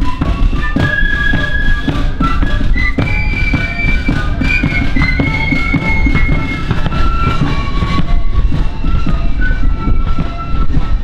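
A marching flute band playing: flutes carry the tune in a run of high held notes over steady drum beats from the bass drum and side drums.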